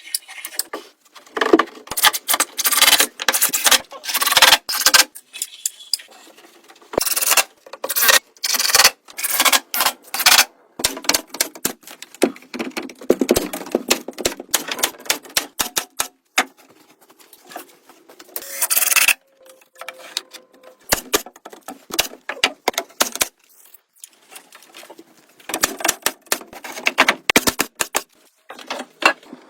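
Irregular clattering, tapping and scraping that stops and starts throughout.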